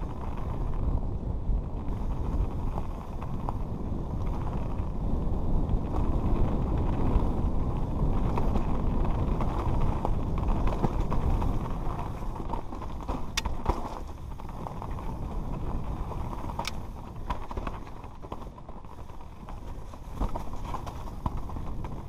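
Mountain bike riding fast down a rough dirt and rock trail, heard from a helmet-mounted camera: a steady rumble of tyres and rattling bike with wind buffeting the microphone. Two sharp clicks stand out around the middle.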